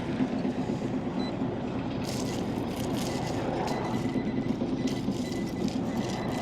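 Heavy earth-moving plant's diesel engine running steadily, with short crackly clicks over it from about two seconds in.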